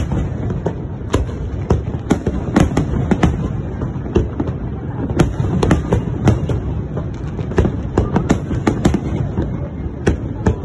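Fireworks display: aerial shells bursting in quick, irregular succession, several sharp bangs a second over a continuous low rumble.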